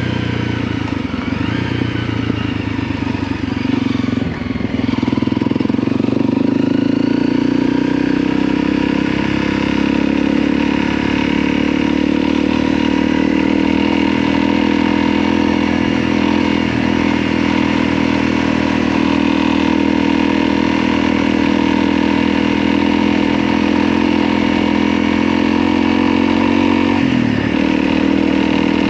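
Motorcycle engine running at a steady speed, with a brief dip and shift in pitch about four to five seconds in.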